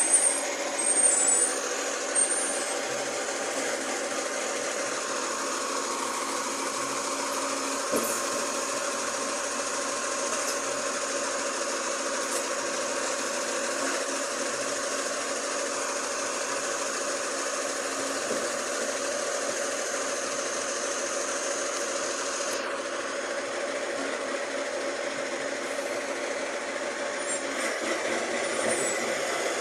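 Garbage truck engine running steadily, with a few short high squeals in the first couple of seconds and a single click later on.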